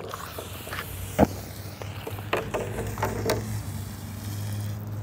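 Lithium metal from a lithium metal battery reacting with water after being plunged into it: a hissing fizz broken by several sharp crackles and pops as it burns.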